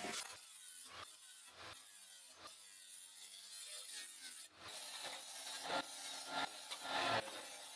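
Sheet iron being worked by hand: a few light, separate clinks, then from about four and a half seconds in, repeated rasping scrapes of iron discs.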